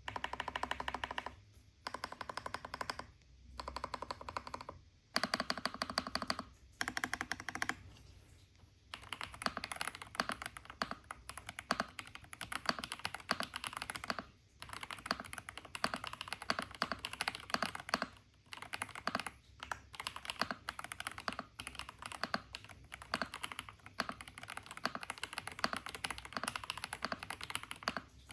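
Typing on a WK87 mechanical keyboard fitted with Akko Cream Yellow linear switches: quick runs of keystrokes clacking, broken every few seconds by short pauses.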